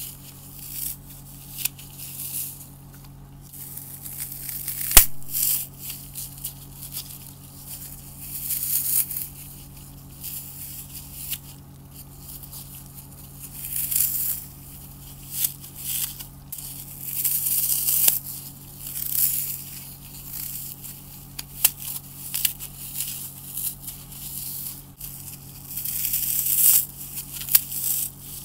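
Dry floral foam crunching and crumbling as a gloved hand squeezes and breaks it apart, in irregular bursts of crisp crackling, with one sharp snap about five seconds in.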